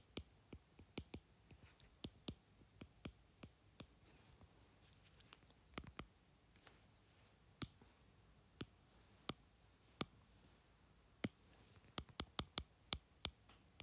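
Stylus tip tapping and scratching on a tablet's glass screen during handwriting: a faint, irregular string of light, sharp clicks with a few brief scratchy strokes.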